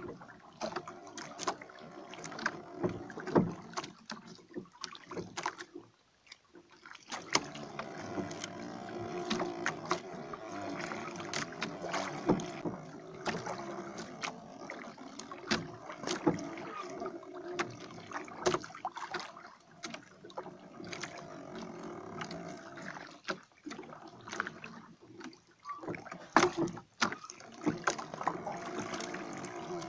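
Water lapping against a small wooden outrigger boat at sea, with frequent knocks and clicks from the hull and from hand-line fishing gear being worked. There is a brief lull about six seconds in.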